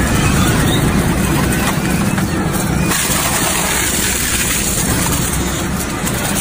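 Double-shaft shredder running under load, its toothed steel rotors crunching and tearing apart a plastic computer keyboard over a steady motor hum.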